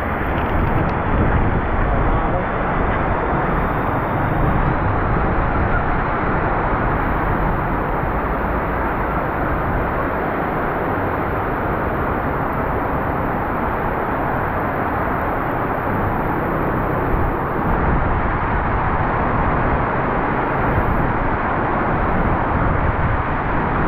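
Heavy rain and passing traffic on a flooded city street: a steady, dense noise that barely changes.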